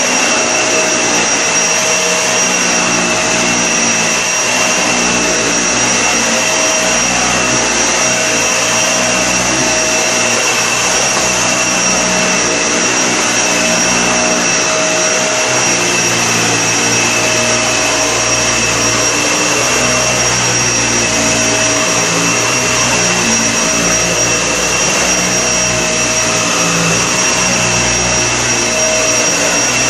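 Vacuum cleaner running steadily, its motor's whine high and constant, with a lower hum that wavers a little as it works.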